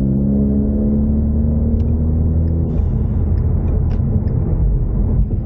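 Ford Mustang EcoBoost's turbocharged four-cylinder engine droning at a steady pitch under way, over road rumble. About three seconds in, the steady drone gives way to a rougher rumble of road and tyre noise.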